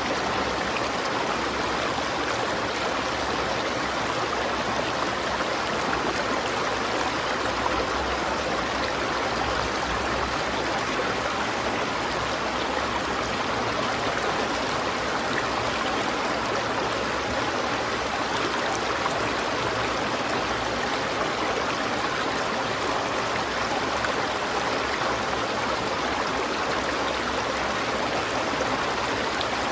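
River water flowing, a steady rushing and burbling with no breaks.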